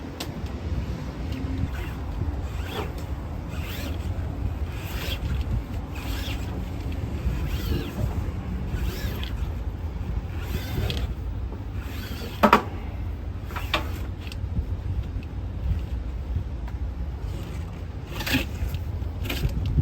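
Scattered clicks, scrapes and rubbing from hand work on a crane's hydraulic hoses and fittings, with one sharper click about halfway through, over a steady low rumble.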